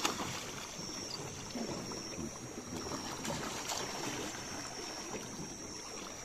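Gentle trickling and lapping of river water, with soft irregular sloshes, under a steady high thin whine.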